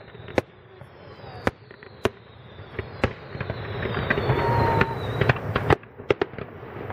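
Fireworks display: scattered sharp bangs of shells bursting, with a faint high whistle that slowly falls. From about halfway a hiss and crackle builds as ground fountains and crackling effects fire.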